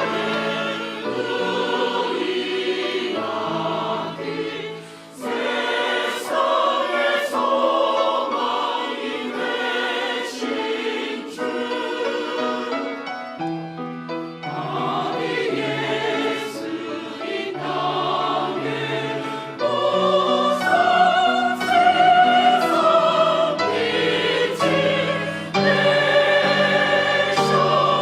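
Church choir singing a sacred anthem in several parts, with short breaks between phrases about five seconds in and again near the middle.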